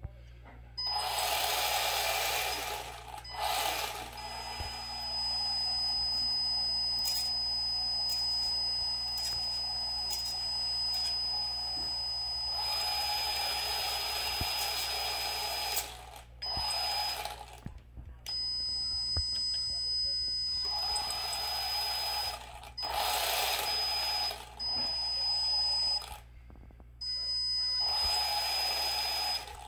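Bezgar 6 1:16-scale RC truck's electric motor and drivetrain spinning its wheels freely in repeated throttle bursts of one to three seconds, as the newly fitted ESC and receiver are bench-tested with the truck up on a stand. A steady high whine carries on between many of the bursts.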